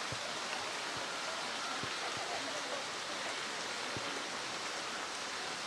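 Steady rushing of running water, with a few faint low knocks.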